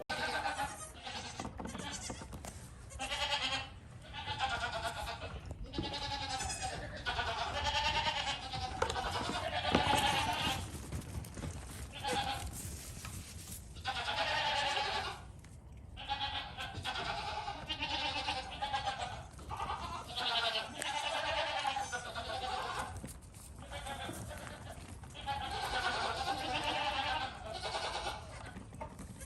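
Goat bleating over and over: many wavering calls in a row with short pauses between them.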